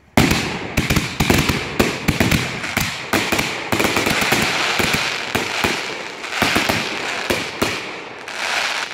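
Rack of consumer aerial firework shells firing in a rapid string of sharp bangs as the shells launch and burst overhead, with dense crackling between the bangs. The barrage thins out near the end.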